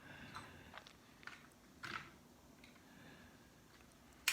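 A few faint light clicks and taps, about four in the first two seconds, from small parts of a Kindle e-reader being handled as it is taken apart.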